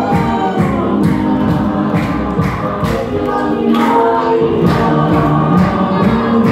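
Group singing with a steady beat of sharp strikes, about three a second: the music for a Tongan dance.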